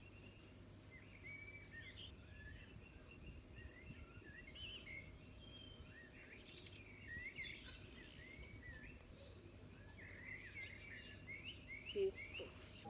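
Faint outdoor birdsong: many short rising and falling chirps and whistles from birds, over a steady low rumble. A couple of soft knocks near the end.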